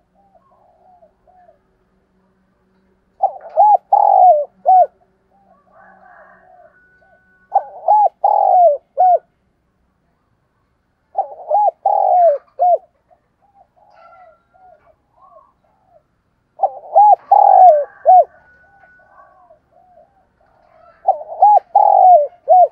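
Spotted dove cooing: five loud phrases of several quick coos each, repeated about every four to five seconds, with softer coos in between.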